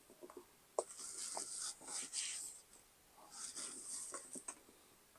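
A few faint taps, then two stretches of soft, hissy rustling, the first about two seconds long and the second about a second.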